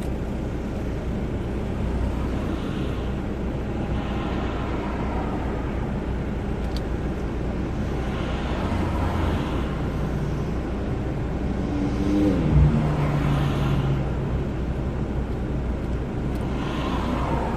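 Car engine idling steadily, with a brief pitched sound and a thump about twelve seconds in.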